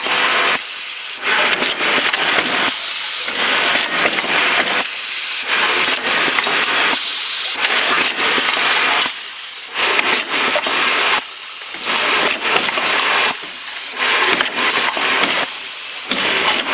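Automatic bottle feeder and filling machine running, with a loud hiss repeating in a regular cycle about every two seconds over the steady machine noise.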